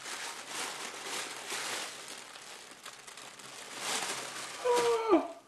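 Tissue paper rustling and crinkling as it is pulled open by hand, then near the end a man's short exclamation falling in pitch.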